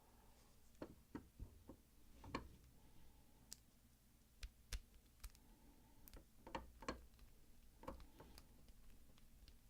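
Pick raking the pins of a Master Lock No. 5 laminated pin-tumbler padlock: faint, irregular metallic clicks and light scrapes as the pins are worked under tension.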